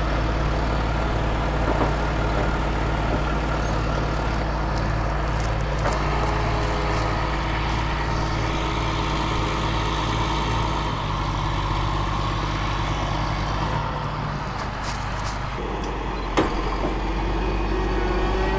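Cat Challenger MT765C tractor's diesel engine running steadily, its low note changing a little past the middle. There is a single sharp click near the end.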